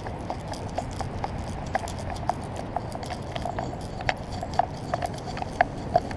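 Irregular light clicks and taps, two or three a second, from the camera rig and collar on a dog's back as the dog moves over grass, over a steady low rumble.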